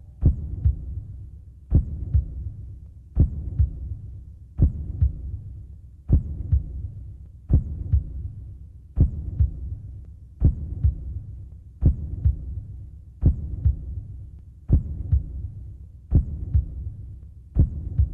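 Slow, steady heartbeat sound effect: a deep double thump with a sharp attack, about one beat every second and a half, over a low hum.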